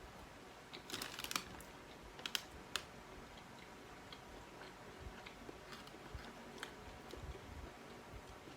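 Faint clicks and taps of eating and handling wings, with a few sharper clicks in the first three seconds, then softer scattered ones.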